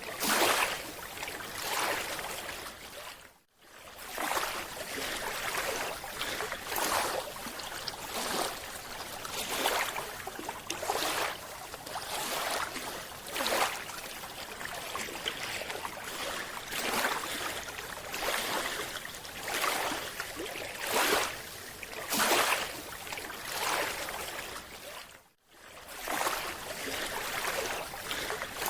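Water sound with rushing surges of bubbling noise every couple of seconds over a steady hiss, broken twice by brief drop-outs.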